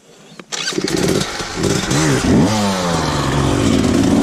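Dirt bike engine starting up about half a second in, given a quick rev about two seconds in, then running steadily.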